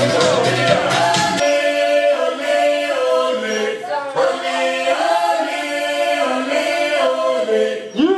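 Background pop music: the beat and bass drop out about a second and a half in, leaving a group of voices singing in harmony.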